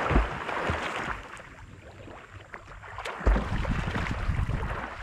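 Water sloshing and splashing, with a low thump about three seconds in.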